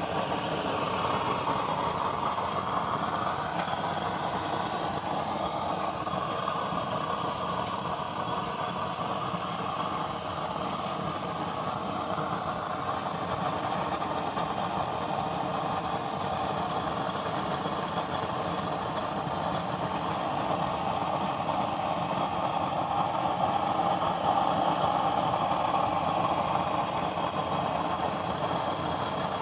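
Homemade used-oil stove burner running with jets of blue flame, giving a steady rushing noise with no breaks.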